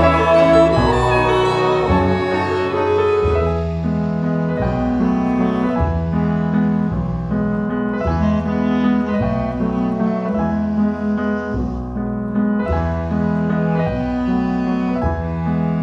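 Instrumental background music: piano over a low bass line that steps to a new note about every second or so.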